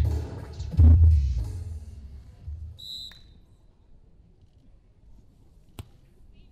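Arena music with a heavy bass beat fades out over the first two seconds. The referee's whistle then blows once, a short high tone, about three seconds in, signalling the serve. Near the end comes a single sharp slap of a hand striking the volleyball on the serve.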